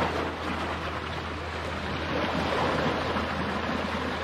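Sea surf washing against and breaking over rocks, a steady rush of water noise.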